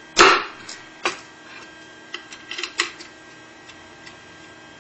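A sharp knock as the lawnmower engine's back cover is tapped down onto its locating dowels, then a lighter knock and a quick run of small metallic clicks and taps as the cover is seated by hand.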